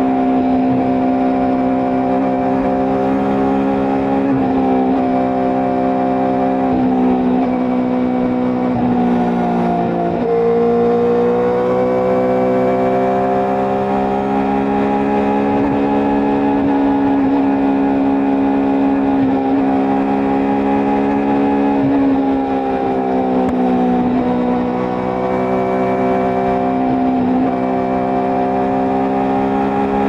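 Benelli TNT 600i's inline-four engine running at steady cruising revs on the move. Its pitch dips and climbs back twice, about a third of the way in and again about four-fifths through.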